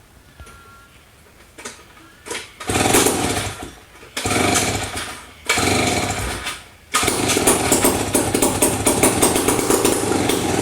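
Strunk-built Sears 3-19 chainsaw with a 77 cc Tecumseh AH47 two-stroke engine, running on a squirt of fuel mix. It catches with a couple of short pops, runs in three bursts of about a second each that die away, then runs steadily through the last three and a half seconds.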